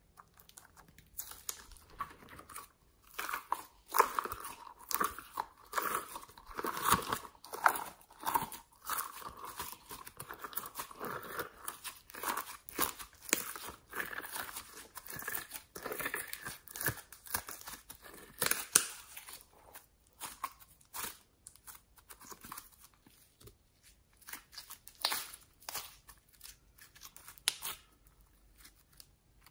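Hands squishing, stretching and folding glittery homemade slime: a run of irregular sticky crackles and pops that thins out near the end.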